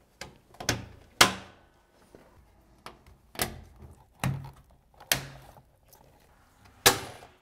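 Locking pieces and little cover caps being pushed into the metal wall profiles of a sliding shower enclosure, which locks the enclosure in place: a series of about eight sharp clicks and knocks, some with a dull thud, the loudest about a second in.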